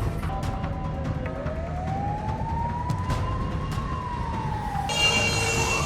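Emergency vehicle siren wailing in slow rising and falling sweeps over a low traffic rumble. About five seconds in, the sound cuts abruptly to another siren sweeping up to a higher pitch.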